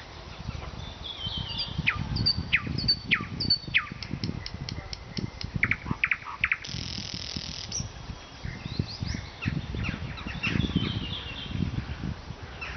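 Nightingale singing in varied phrases: steep down-slurred whistles, a quick run of dry clicks, a harsh rattle about seven seconds in, then more whistled and chattering notes. An uneven low rumble runs underneath the song.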